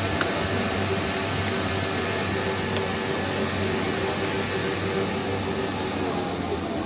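Ice cream machine running with a steady motor hum and hiss, and a light click just after the start.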